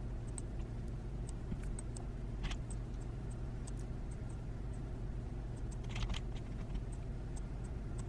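Faint scattered clicks from a computer mouse over a steady low hum, with two slightly louder clicks about two and a half and six seconds in.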